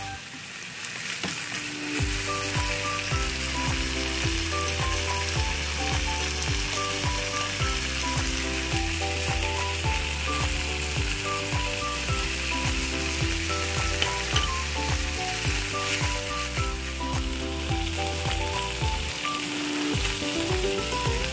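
Minced pork sizzling steadily as it is stir-fried in a frying pan with a wooden spatula, under background music with a melody and a regular bass beat.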